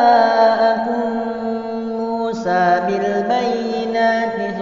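Quran recitation in murattal style: a single voice chanting in long, held melodic notes, with a brief break for breath about two seconds in.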